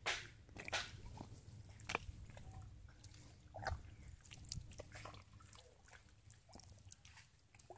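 Faint wet squelches and small splashes of hands groping through shallow mud and water, with a few sharper splats, the loudest right at the start.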